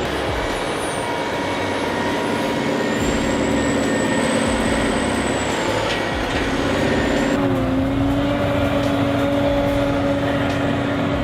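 Heavy machine's engine running steadily, with a faint high whine in the first half. About seven seconds in, the sound changes to a steadier, lower hum.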